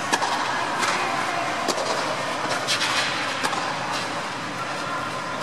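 Steady noise of an indoor tennis hall under an air-supported dome, with several sharp knocks of tennis balls in the first half.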